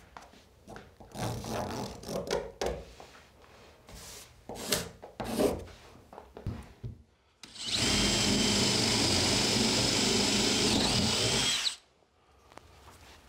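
Scuffing and small knocks, then a DeWalt cordless drill runs steadily for about four seconds, boring into a wooden plank wall, and stops abruptly.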